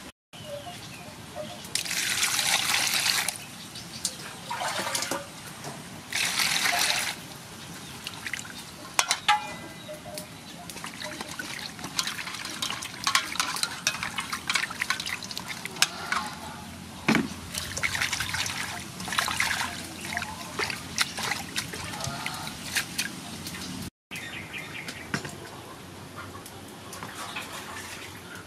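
Water splashing and sloshing in a metal basin as hands wash tomatoes and cilantro, with a few louder splashes of about a second each in the first several seconds, then many small splashes and knocks.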